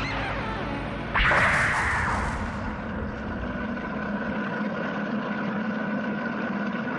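Science-fiction spaceship sound effects: a steady low drone, broken about a second in by a sudden loud whooshing blast that fades over a second or two, then a steady hum.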